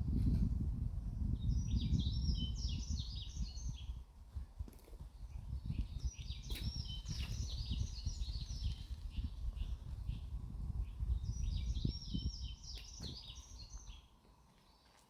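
A songbird sings three bursts of rapid, jumbled chirping phrases. Under the song is a louder, irregular low rumble that fades out near the end.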